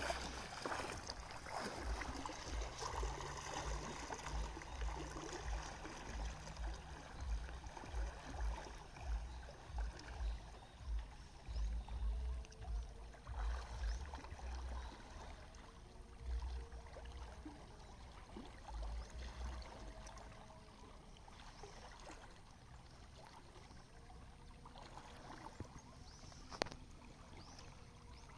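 Shallow river water sloshing and trickling as a man wades through it waist-deep, with irregular low rumbles through the first two-thirds that then die away, and one sharp click near the end.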